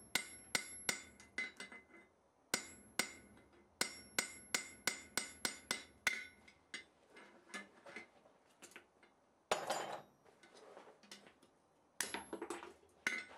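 Hand hammer striking hot square bar steel laid in a V-shaped bottom tool on the anvil, crisping up the outside of a drifted diamond-shaped hole. The blows come in quick runs of sharp strikes, several a second, each with a short metallic ring, and there are brief pauses between the runs.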